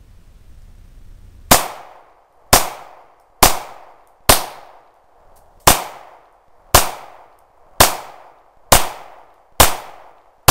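Hi-Point C9 9mm pistol fired ten times at roughly one shot a second, each shot followed by a short echo; the last shot comes right at the end. The rounds cycle from a sanded-out 10-round extended magazine with no failures to feed.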